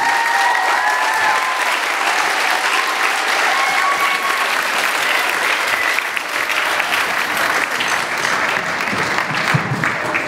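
Audience of schoolchildren clapping, with a few high voices calling out over the applause in the first few seconds. The clapping eases off a little after about six seconds.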